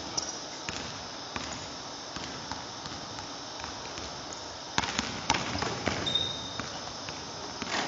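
A basketball being dribbled on a hardwood gym floor, single bounces about every half second, then a run of louder bounces about five seconds in during a drive to the basket.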